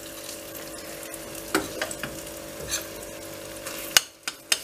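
Eggs frying in butter and oil in a stainless steel pan, sizzling steadily on low heat while hot fat is spooned over them. A metal spoon clicks against the pan a few times, most sharply about four seconds in.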